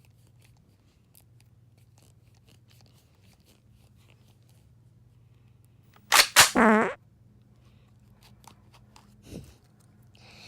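Faint scattered clicks and taps of small plastic toy eggs and packaging being handled. About six seconds in comes one loud, short burst: sharp clicks, then a brief wavering pitched noise.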